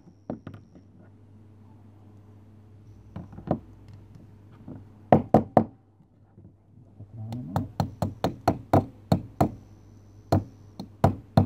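Sharp knocks in quick clusters: a few near the start, about four around the middle, then a run of a dozen or so near the end. A pin punch is being struck to drive a pin out of a WE Desert Eagle gas-blowback airsoft pistol's slide assembly.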